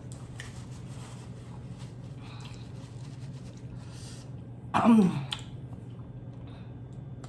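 A person makes one short voiced sound, falling in pitch, about five seconds in, over a steady low hum.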